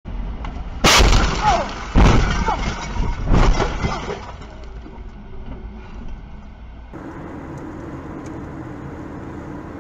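A car crashing into the back of a truck's trailer: three loud crashing bangs, a second or so apart, with metal ringing after each. Near the end, steady road and engine noise of a car driving on a highway.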